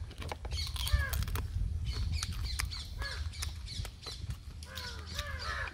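Birds calling over and over in short squawks that rise and fall in pitch, with close sharp clicks and crunches of crab shell being broken and eaten by hand; the loudest crack comes about a second in.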